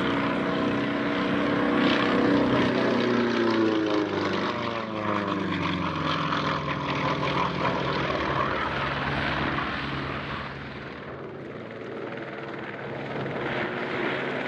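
Pitts Model 12 aerobatic biplane's nine-cylinder radial engine and propeller droning in flight. The note drops in pitch a few seconds in, fades somewhat about ten seconds in, then grows louder again near the end.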